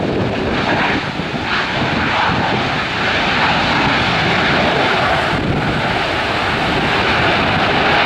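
CFM56-7B turbofan engines of a Boeing 737-800 on its landing rollout, a steady jet rush that grows a little louder about three seconds in and then holds.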